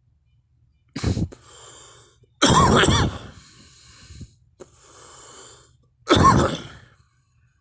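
A person coughing three times, about a second in, at two and a half seconds and near the end, the second cough the loudest and longest, with audible breaths between the coughs.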